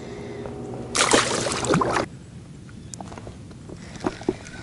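A small blue catfish released back into the water with a brief splash about a second in, followed by a few faint taps.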